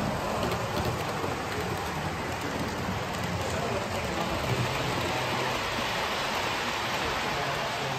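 OO gauge model trains running along the layout's track: the wheels rolling over the rails make a steady, even noise with no breaks.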